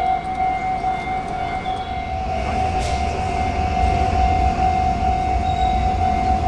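Railway level-crossing warning bell ringing on one high tone. About two seconds in, the low rumble of a train passing over the crossing builds and keeps on under it.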